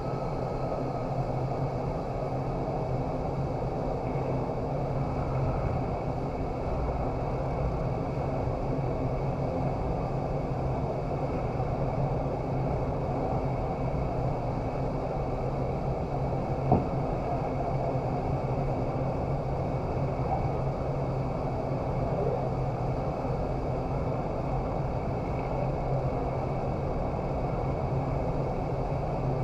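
Indoor vertical wind tunnel running at flying speed: a steady rush of air with a low, even hum from the fans, and one sharp click a little past halfway.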